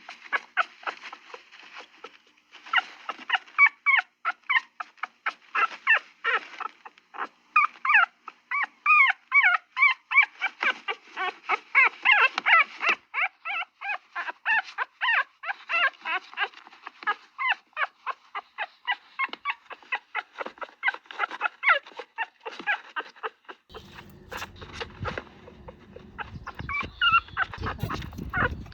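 A dog whimpering and yipping in a quick run of short, high-pitched cries, two or three a second. Near the end a low steady background noise comes in under the cries.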